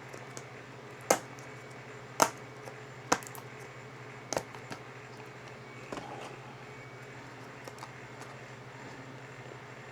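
Sharp plastic clicks and taps from handling a yellow UV ink cartridge and its packaging: four crisp clicks about a second apart, then a softer one about six seconds in, over a steady low hum.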